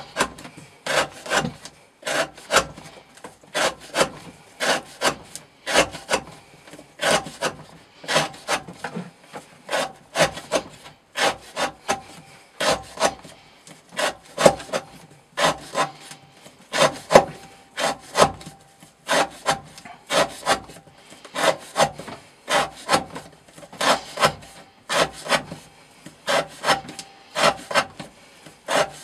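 Knife blade slicing through rope against a wooden board, cut after cut at about two strokes a second, each a short rasping scrape: a repetitive rope-cutting test of edge wear resistance.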